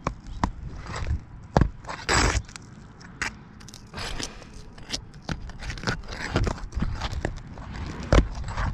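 Irregular scrapes, clicks and knocks of handling on an asphalt shingle roof, with a low rumble beneath.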